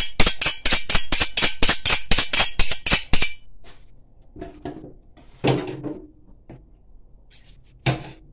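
A quick, even run of about twenty sharp clinks, like hard objects such as metal or dishware struck together, about five or six a second for some three seconds. A few separate knocks follow later.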